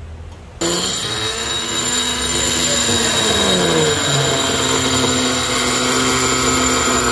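Electric die grinder starting up about half a second in and grinding the port of an aluminium motorcycle cylinder with a rotary burr: a steady high metallic whine, with the motor's pitch dropping a few seconds in as the burr bites.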